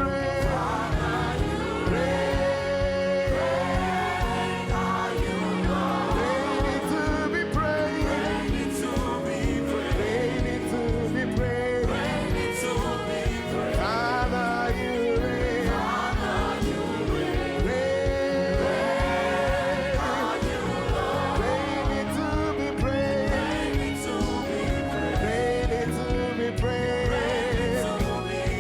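Gospel worship music: voices singing a slow melody together over a band with a steady beat.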